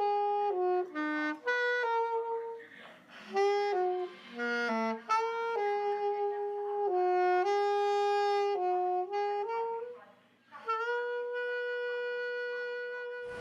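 Outro music: a single melody line of held notes in short phrases, closing on one long sustained note.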